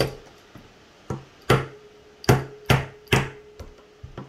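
About six sharp knocks, closer together in the second half, as smooth metal rods are tapped and forced into a 3D-printed plastic part. A faint ringing tone carries on between the later knocks.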